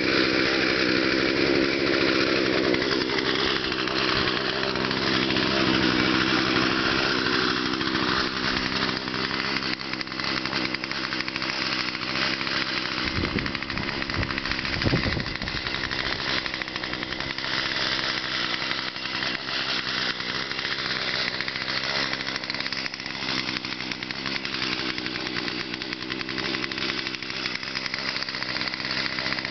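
Small 18-inch Poulan gas chainsaw running steadily and cutting into a 36-inch red oak log. There is a brief low thump about halfway through.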